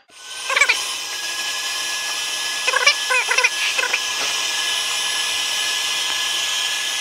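Carpet extraction machine's vacuum motor running steadily with a high whine, with a few short squeaky chirps about half a second in and again around the middle.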